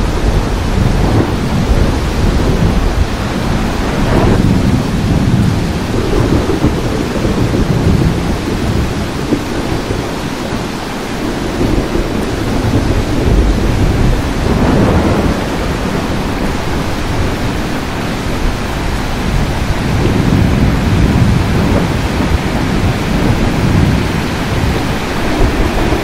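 Heavy steady rain with low thunder rumbling and swelling several times, about 4, 15 and 21 seconds in.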